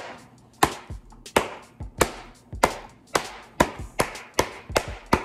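A new custom Buckler leather baseball glove being smacked hard in the pocket, about a dozen sharp leather smacks roughly twice a second, coming a little quicker toward the end.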